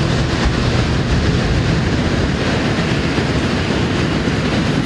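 Tower block collapsing in an explosive demolition: a loud, continuous rumble and clatter of falling structure and debris, easing off a little near the end.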